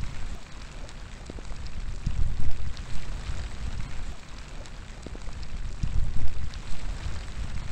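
Steady rain falling, with individual drops ticking close by. Low rumbling gusts of wind swell about two seconds in and again about six seconds in.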